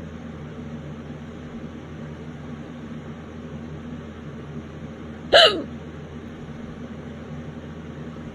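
A single violent hiccup about five seconds in: a sharp catch with a short voiced yelp that falls in pitch, over a steady background hum.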